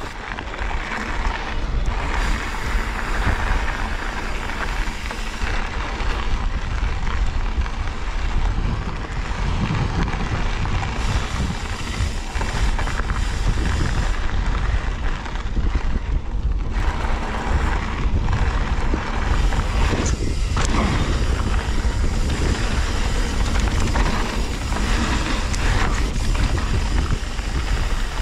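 Mountain bike riding down a dirt desert trail: a steady rush of wind buffeting the camera microphone over the rumble of tyres rolling on dirt and rock, with a few short clatters from the bike.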